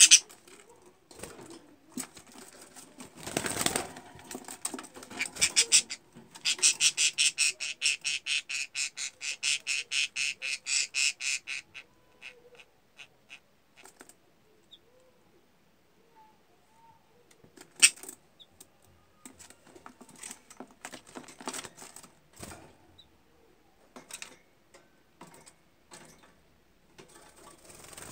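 Caged budgerigars: a brief flutter, then a fast, even run of short, sharp high clicking notes, about four a second for some five seconds, followed by scattered clicks and soft chatter.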